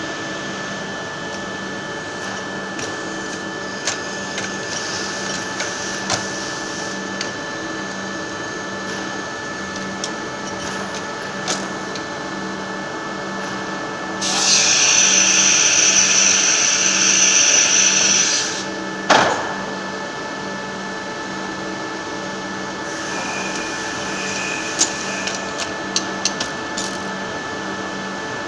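GF-2171 milling machine running through its working cycle: a steady hum with a held whine and scattered clicks. About halfway in, a much louder, higher noise lasts about four seconds and ends in a sharp knock; a milder stretch with several clicks follows near the end.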